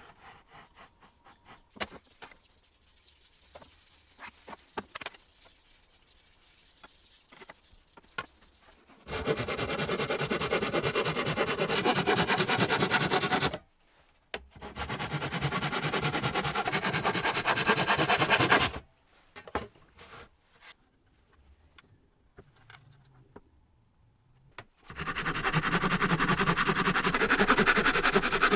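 Hand saw cutting through a thin wooden board held against a saw guide, in three bouts of steady sawing of about four seconds each, starting about nine seconds in. Light clicks and knocks of the work being handled come before the sawing.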